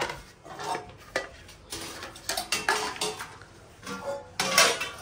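Household pots, pans and utensils clattering and clanging as they are knocked and thrown about, a string of separate crashes.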